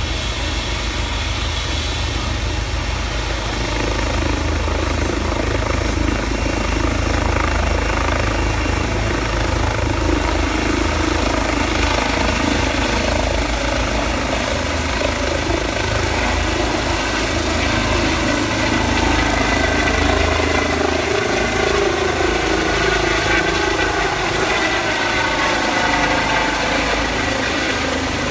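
Eurocopter EC135 rescue helicopter lifting off: its turbines and rotor run steadily under a thin, high turbine whine. The sound grows louder a few seconds in as the helicopter rises into a hover. The pitch shifts slightly in the last few seconds as it climbs away overhead.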